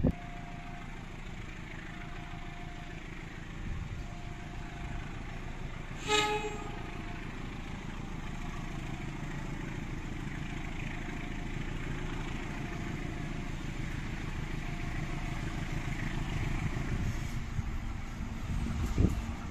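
Two diesel locomotives in double traction hauling a long parcel train away from the station and towards the listener, their engine rumble growing slowly louder, with one short horn toot about six seconds in.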